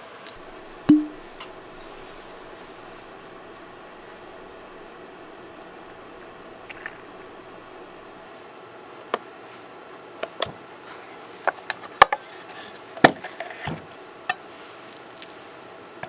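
A cricket trilling, a fast steady pulsing chirp that stops about halfway through. There is a single knock about a second in, and a scatter of sharp clicks and knocks in the second half.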